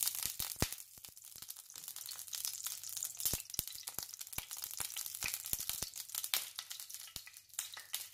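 Cooking oil heating in a nonstick frying pan, hissing faintly with scattered sharp crackles and pops.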